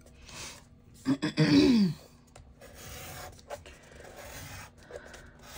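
Scoring stylus dragged along a groove of a We R score board, pressing a score line into kraft cardstock: a steady scratchy rubbing from about two seconds in. A brief vocal sound about a second in.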